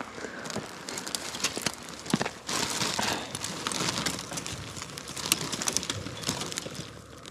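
Dry brush twigs crackling and snapping and a plastic trash bag rustling as litter is picked out of the brush by a gloved hand, with a denser burst of rustling about two and a half seconds in.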